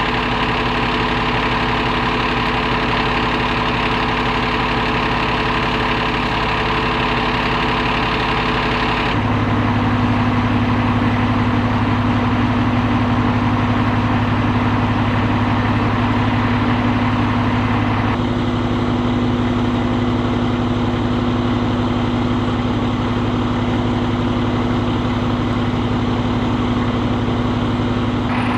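Fire apparatus diesel engines idling steadily with a constant hum. The sound changes abruptly twice, about nine and about eighteen seconds in.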